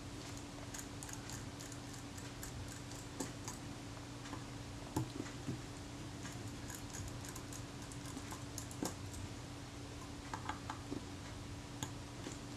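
Faint, scattered light clicks and scrapes of small metal camera parts as fingers work the rings at the front of a Kodak Retina Reflex IV, a couple a little louder about five and nine seconds in, over a steady low hum.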